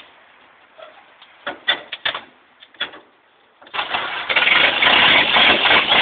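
Ford Model AA truck's four-cylinder side-valve engine, long dormant and coaxed with starting fluid, catching with a few knocks and then running loud and rough from about four seconds in.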